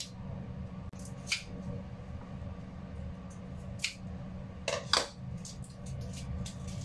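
A handful of short clicks and knocks from a chef's knife being set down on a wooden cutting board and a bunch of yard-long beans being handled, the loudest pair about five seconds in. A steady low hum runs underneath.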